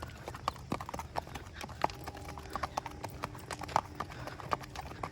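Horse hooves clip-clopping at a walk, irregular sharp clops several times a second.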